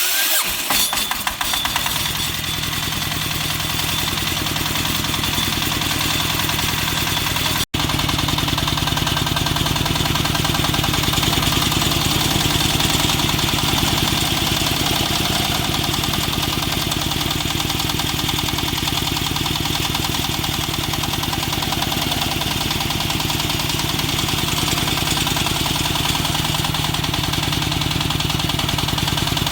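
Portable water well drilling rig's engine running steadily at a constant speed, with a dense mechanical clatter over a low hum. The sound cuts out for an instant about eight seconds in.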